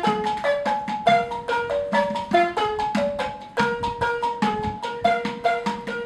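A wooden balafon played with mallets: quick struck notes, about four or five a second, in a repeating melodic pattern.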